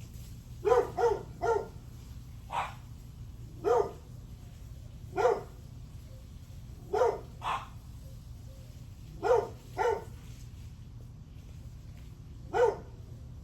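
A dog barking over and over: about eleven short barks in uneven groups of one to three, with gaps of a second or more between groups. A steady low hum runs underneath.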